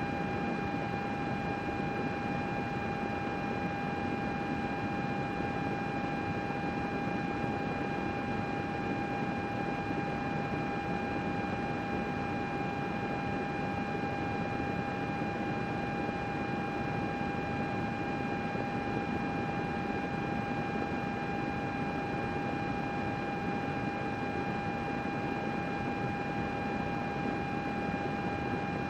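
A computer's cooling fans running steadily: an even rush of air with a thin, constant whine on top.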